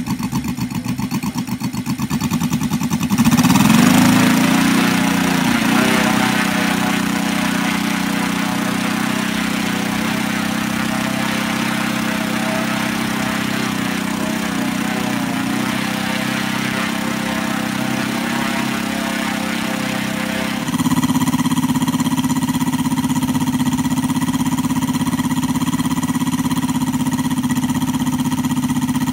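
Homemade 100cc five-cylinder radial engine, built on a Saito FG60R3, running on a test stand and turning a 26×12 wooden propeller. It speeds up and gets louder about three seconds in, holds a steady high speed, then settles into a different steady note about twenty seconds in.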